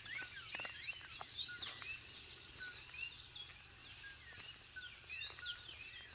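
Dawn chorus: many birds singing and calling at once, a dense tangle of quick chirps and whistling sweeps.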